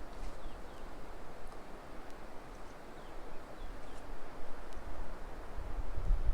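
Steady rushing of a rain-swollen river, with a few faint high chirps, and wind buffeting the microphone near the end.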